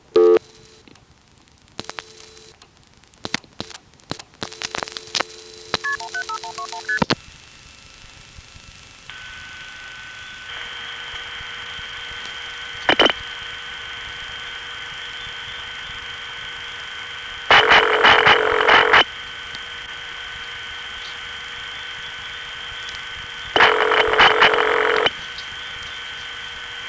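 Analog telephone-line recording of a 1970s long-distance call: clicks and snatches of dial tone, then a short run of paired signalling beeps. The line then goes steady with a faint hum and held tones, and a ringback plays two buzzy rings of about a second and a half each, roughly six seconds apart. This is the ring of the Bell-served Canadian network, turning up on a call to Kingston, Jamaica.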